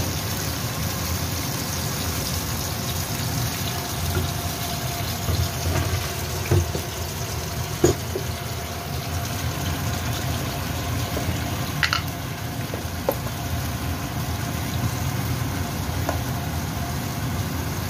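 Tofu and tomato cooking in sauce in a wok: a steady sizzling, bubbling hiss over a low rumble, with a few short sharp knocks.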